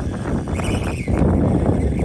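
Wind rumbling on the microphone with irregular crackling, and the faint whine of the SkyRC SR5 RC dirt bike's electric motor rising briefly about half a second in as it rides over the dirt.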